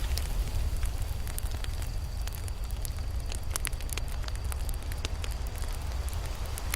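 Campfire burning: a steady low rumble of the flames with many irregular sharp crackles and pops from the burning wood.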